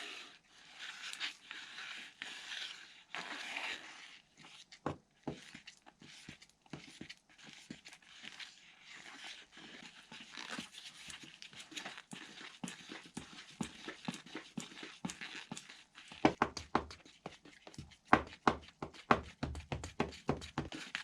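A metal rod scraping and stirring thick filled resin in a jug, working the curing agent down the sides. It goes as a rhythmic series of scrapes that turn sharper and louder, about three strokes a second, in the last few seconds.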